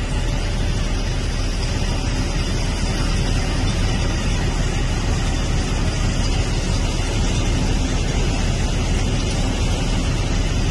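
Steady, loud low rumble with an even hiss over it, unbroken and without voices.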